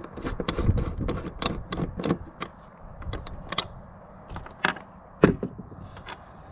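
Hand screwdriver turning a screw out of a pine board, a quick run of small clicks and ticks, then a couple of sharper knocks about four and five seconds in.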